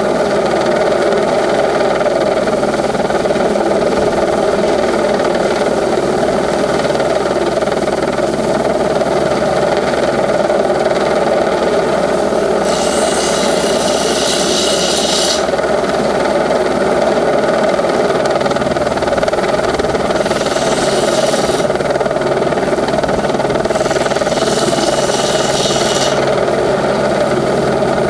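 Helicopter hovering overhead while holding a mast on its cable: a loud, steady drone of engine and rotor. Three short bursts of high hiss come over it about halfway through, a little later, and again near the end.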